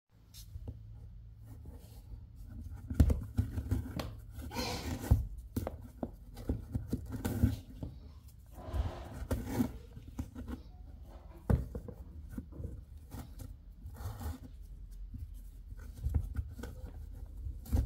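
Braided rope rustling and rubbing as it is pulled through and knotted around a plastic box handle, with scattered sharp clicks and knocks from the handle and hands. A low steady hum runs underneath.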